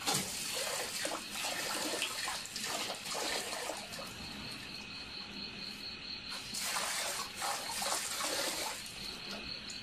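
Water running from an outdoor tap and splashing into a metal bucket while a dog laps at the stream. A steady, high, pulsing insect trill carries on in the background.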